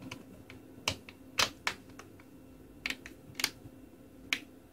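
Plastic snap clips on an LG Viper smartphone's midframe clicking into place as the frame is pressed down along the phone's edges. It comes as a series of sharp, irregular clicks, about seven in all.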